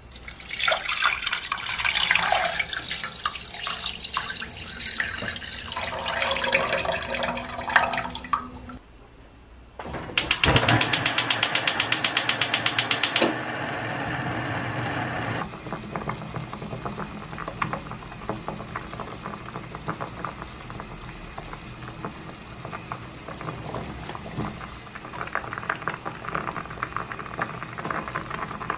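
Water poured in a stream into a stainless steel saucepan for about eight seconds. After a short pause, a gas stove's igniter clicks rapidly for about three seconds until the burner lights, then the pot of water boils, bubbling steadily.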